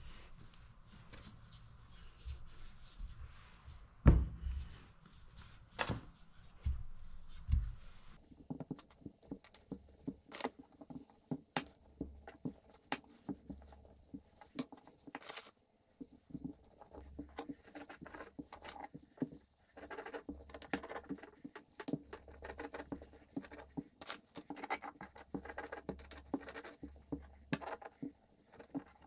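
Stainless steel rolling pin with plastic depth-guide rings rolling out hot water crust pastry on a worktop: a run of light clicks and knocks over low rumbling strokes, with a sharper knock about four seconds in.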